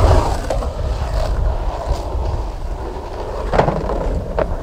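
Skateboard wheels rolling over rough asphalt with a steady low rumble. Near the end there are two sharp clacks as the board rides up onto a wooden wall ramp.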